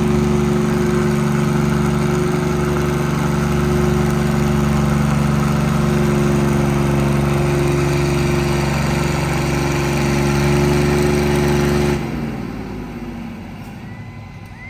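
The engine of a vehicle at a tractor-and-semi pull runs loud and steady at one speed, then cuts off about twelve seconds in. Its pitch falls as it winds down.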